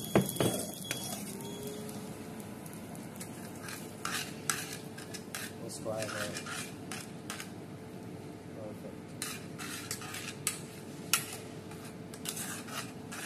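Metal tongs and a spoon clinking and scraping against a stainless steel pan as spaghetti carbonara is tossed, in many short irregular clicks over a faint steady hum. Near the start, a short high beep as the induction cooker is switched off.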